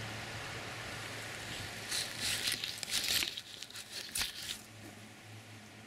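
Close-up handling noise: a run of rustling, crinkling scrapes right against the microphone between about two and four and a half seconds in, over a steady stream hiss that drops away partway through.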